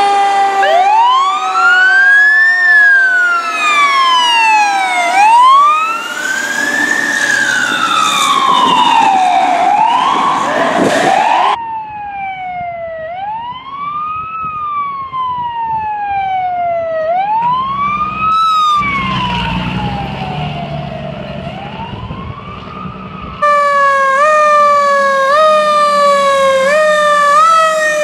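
Fire apparatus sirens wailing, the pitch rising and falling about every five seconds. After about 12 s the siren sounds fainter and more distant, with a low rumble under it. For the last few seconds a louder siren sweeps faster as a ladder truck passes close by.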